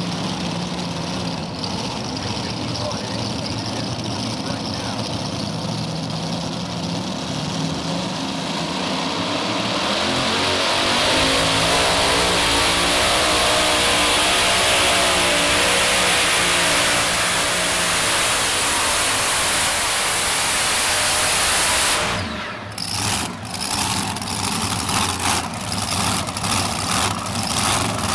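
A modified pulling tractor's multiple supercharged engines run at the starting line. About ten seconds in they go to full throttle for the pull, with the pitch rising as the tractor goes down the track. The sound cuts off suddenly a little past two-thirds of the way through, and another tractor's engines follow, running in rhythmic pulses about twice a second.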